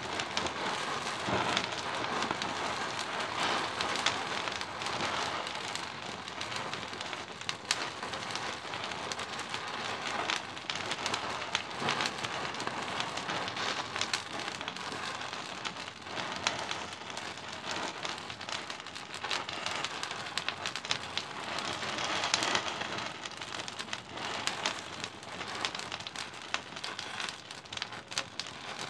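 Thousands of wooden matches burning in a packed sphere: a dense, steady crackling and fizzing, dotted with many small sharp pops.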